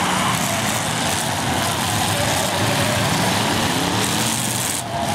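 Engines of several full-size demolition derby cars running hard together, their pitch rising and falling as they are revved.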